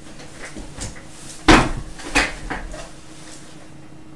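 A few knocks and clacks of things being handled or set down, the loudest about a second and a half in, followed by two smaller ones.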